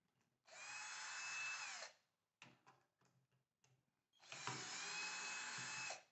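Cordless drill running in two bursts of about a second and a half each, its whine dropping in pitch as each run stops, turning a bit in a screw on the side cover of a Bafang geared hub motor to take it apart. Light clicks of handling between the runs.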